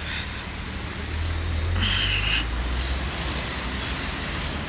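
City road traffic: a vehicle passing close by, its low rumble swelling about a second in and easing off a couple of seconds later, with a brief high tone near the middle.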